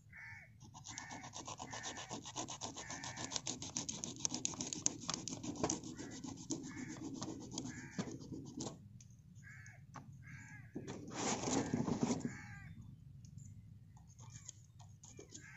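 Kitchen knife sawing and scraping through a tuna's fins along its back in rapid strokes for several seconds, then again briefly near the end. Crows caw repeatedly throughout.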